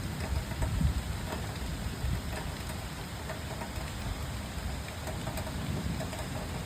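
Rain falling steadily in a thunderstorm, with scattered drop ticks over an uneven low rumble that swells loudest about a second in.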